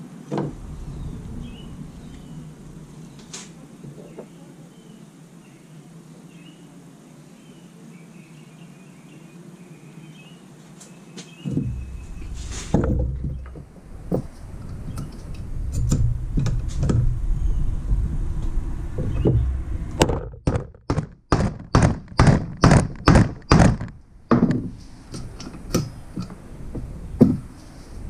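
A hammer striking a hammer-type lug crimper to crimp a battery-cable splice: a run of about a dozen quick, sharp blows, about three a second, then two more single blows. Before the blows come low thuds of the parts being handled and set in the crimper.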